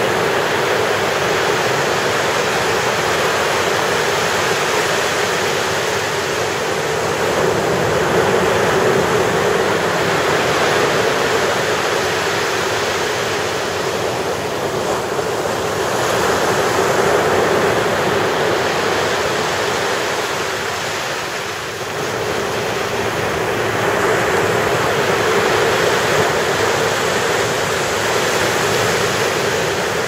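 Ocean surf: waves breaking and washing up the beach in a continuous rush that swells and eases gently in loudness.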